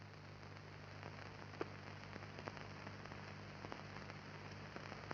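Background noise of an old film soundtrack: a steady hiss with a low electrical hum and a few faint scattered clicks and crackles.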